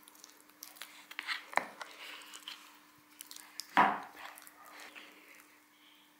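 Metal spoon stirring thick nut butter in a plastic tub: irregular scrapes and clicks against the tub's sides, the loudest a little under four seconds in.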